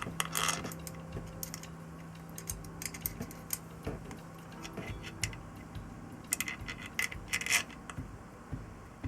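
Scattered metallic clinks and clicks of tools and small metal parts being handled, with a cluster of sharper clinks about two-thirds of the way through, over a faint steady low hum.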